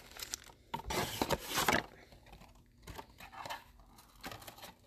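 Foil-wrapped Panini Illusions basketball card packs crinkling and tapping as they are handled and set down in piles on a table. A cluster of rustles comes about a second in, then a few fainter ones.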